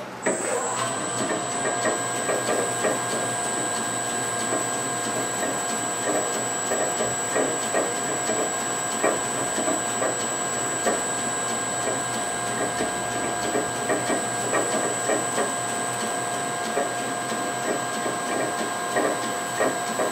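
Metal lathe switched on just after the start and running steadily with a high, even whine and hum, spinning a Tecumseh crankshaft in its four-jaw chuck while a Scotch-Brite pad is held against the shaft to polish it.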